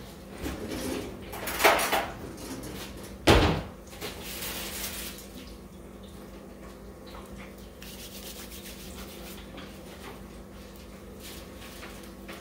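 Two short, loud clatters about a second and a half apart, a few softer knocks after them, then a steady low hum.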